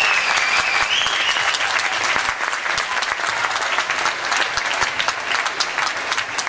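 Audience applauding, dense clapping throughout, with a held high note trailing off in the first two seconds.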